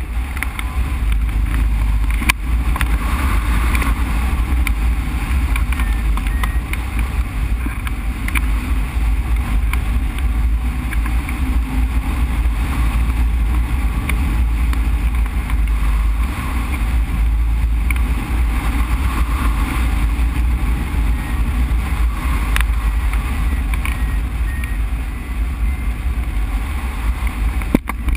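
Steady rush of air over the microphone of a camera mounted on a hang glider in flight, heavy with low wind rumble. Faint short beeps of one steady pitch come through near the start and again in the last few seconds.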